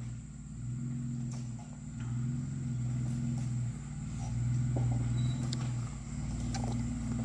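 Jeep Wrangler engine running at low revs, its note swelling and easing several times as the throttle is worked gently while lining up for a rock ledge.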